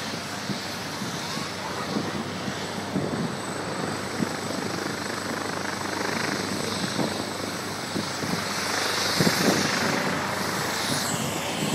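AgustaWestland AW139 twin-turbine helicopter running on the ground, a steady rotor and turbine noise, with children's voices shouting over it.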